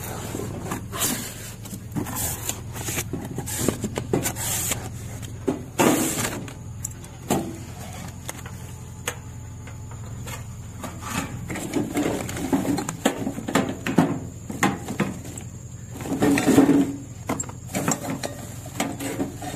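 Irregular rustling, scraping and knocking of cardboard and plastic wrap being handled while a stainless steel deep fryer and its wire fry basket are unpacked. The handling is busiest in the second half, over a steady low hum.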